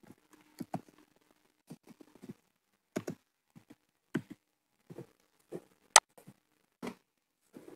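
Computer keyboard keys typed one at a time in short irregular clicks, with one sharper click about six seconds in.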